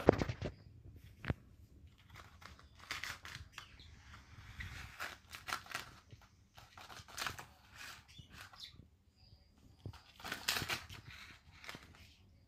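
A cat scratching and pawing at a woven wicker floor cushion on a wooden floor: irregular bursts of scraping and rustling with small clicks, and a sharp knock right at the start.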